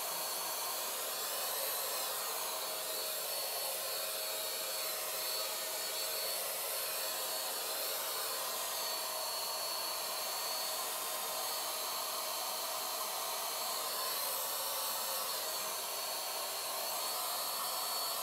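Wagner handheld electric spray gun running steadily, its motor giving a high whine over a rush of air as it blows air across a canvas print.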